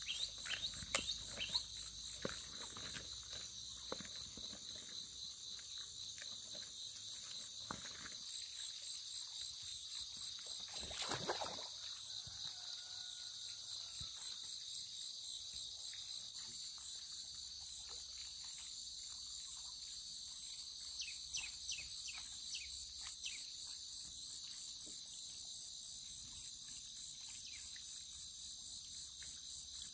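A steady, high-pitched insect chorus of crickets or similar insects trilling, which becomes a more sharply pulsed trill about two-thirds of the way through. Scattered sharp clicks or snaps come over it near the start and again later, with a brief rustling swish near the middle.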